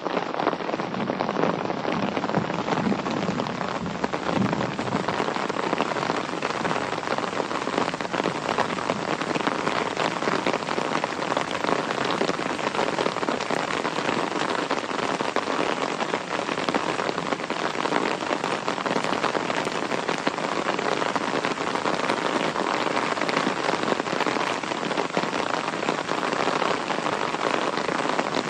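Steady rain falling, a dense, even patter of countless drops with no let-up.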